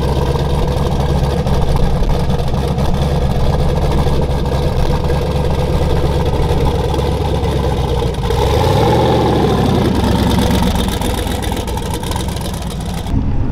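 Fourth-generation Pontiac Trans Am WS6 drag car's twin-turbocharged V8 idling steadily, with one brief rise and fall in engine pitch about nine seconds in.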